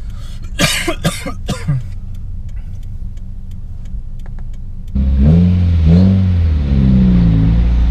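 Subaru WRX's turbocharged flat-four engine heard from inside the cabin, running low and steady, then revving up sharply about five seconds in, its pitch rising and falling several times as the car accelerates. A few short bursts of a person's voice come near the start.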